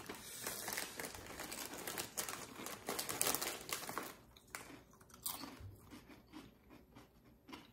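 Lay's potato chips being bitten and chewed with crisp, irregular crunches, mixed with the crinkle of the foil chip bag as a hand rummages in it. The crunching is thickest in the first half and thins out after.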